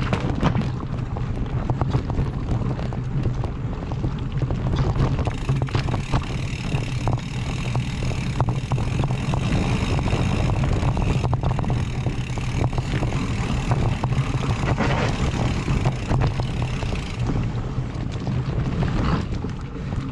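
Wind buffeting the microphone with a steady low rumble as a mountain bike rolls along a dirt trail, the tyres crunching and the bike rattling in quick knocks over rough ground. A higher hiss joins for most of the middle stretch.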